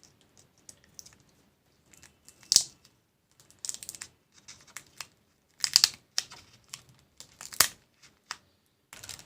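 Irregular sharp clicks and short crackling clusters as a pry tool works the thin plastic keyboard backlight sheet of a 2013 MacBook Pro loose, the film crinkling as it comes away from the keyboard.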